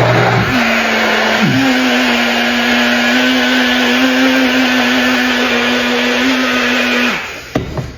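Countertop blender running steadily, blending a thick mix of raw lamb kidney, chicken, salmon and blue cheese with water. It dips briefly about a second and a half in, then runs steady until it is switched off about seven seconds in.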